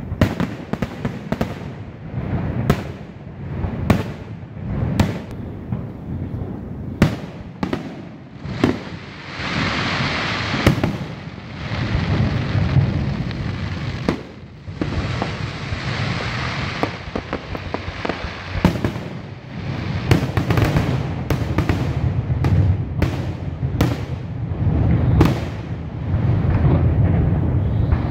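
Aerial fireworks display: shells bursting in a rapid, irregular series of bangs, with two longer stretches of dense crackling about ten and sixteen seconds in.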